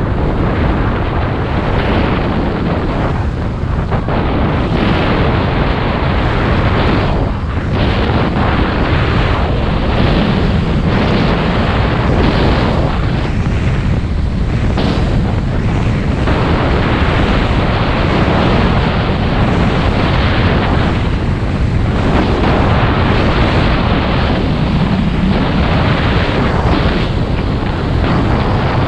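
Wind buffeting the camera's microphone on a skier moving fast down a run: a loud, continuous low rush that thins briefly every few seconds.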